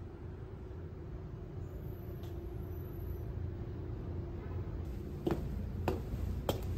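Steady low outdoor rumble, then from about five seconds in, three quick footsteps of hard-soled shoes going down concrete steps.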